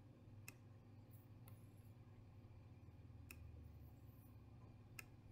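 Near silence over a low steady hum, broken by a few faint, sharp computer mouse clicks spaced a second or more apart.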